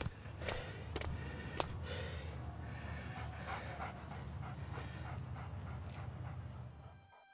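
A dog panting in a steady rhythm, about three breaths a second, over a low rumble, with a few sharp taps in the first couple of seconds; it fades out near the end.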